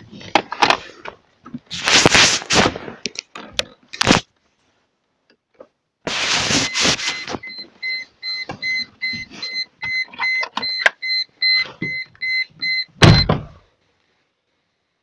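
Car dashboard warning chime beeping rapidly and evenly for several seconds, over knocks and rustles of the phone being handled, ending with a loud thump. No engine is running.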